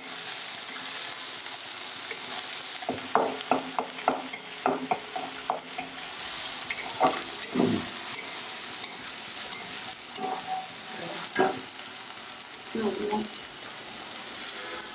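Food frying in hot oil in a pan: a steady sizzle, with a stirring utensil clicking and knocking against the pan from about three seconds in.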